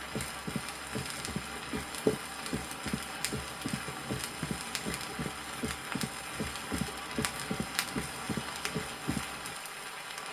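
Heart sounds heard at the apex of a heart with mitral stenosis: the 'quail rhythm', each beat carrying an extra tone early in diastole, the opening snap of the mitral valve. The beat repeats steadily and stops near the end. Vinyl record surface crackle and a few sharp clicks run underneath.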